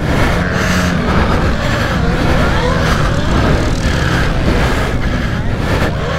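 Several pit bike engines revving up and down at once, their pitches rising and falling across each other.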